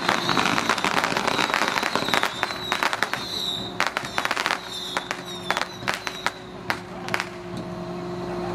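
A string of firecrackers going off in rapid sharp cracks, dense at first and thinning to scattered bangs toward the end. A steady low hum comes up near the end.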